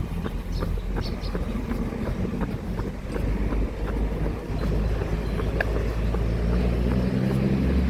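A runner's footsteps, about three a second, over a steady low rumble as the phone is carried along on the run.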